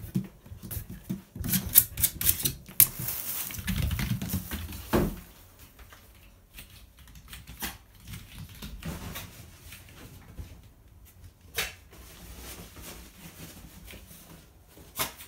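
Yorkshire terrier scratching and pawing at a door, a rapid clatter of claw scrapes and clicks, ending in a low thump about five seconds in. After that, fainter scattered clicks and scuffs as the dog runs off.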